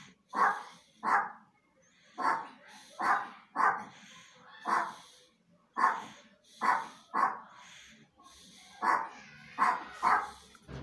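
A dog barking repeatedly: about a dozen short barks at irregular intervals of roughly a second.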